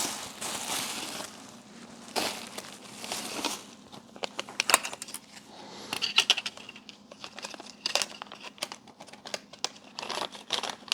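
Plastic packaging crinkling and rustling as it is handled, with scattered sharp clicks and taps.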